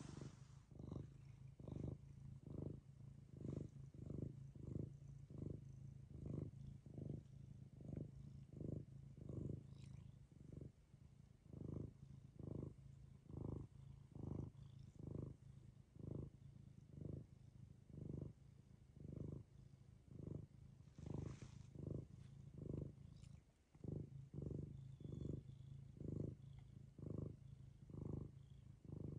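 Domestic cat purring close by, a steady low purr that swells and fades with each breath, about twice a second, with a brief break near the end.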